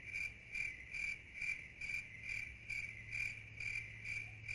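Crickets chirping in a steady, even rhythm, about two chirps a second, the stock 'awkward silence' sound effect.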